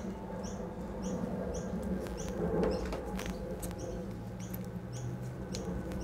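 Short high-pitched squeaky chirps repeating about twice a second, with a few sharp light clicks from a USB-C tester and charger cable being handled.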